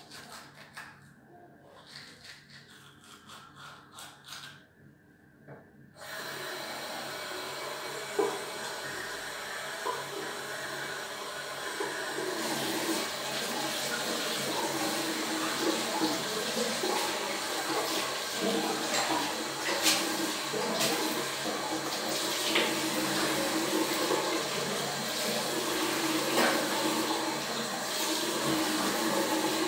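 Toothbrush scrubbing for the first few seconds. About six seconds in, a tap is turned on and water runs steadily into a sink, growing louder a few seconds later.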